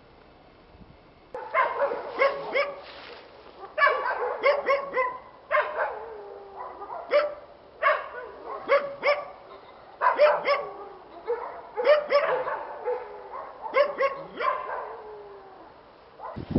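A dog barking repeatedly in short bouts of several barks, a new bout every second or two, starting about a second in.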